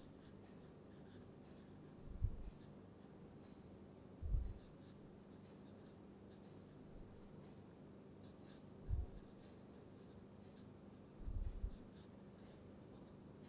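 Felt-tip marker writing on paper in short, faint scratchy strokes over a low steady hum. Four dull low thumps stand out, about two, four, nine and eleven and a half seconds in.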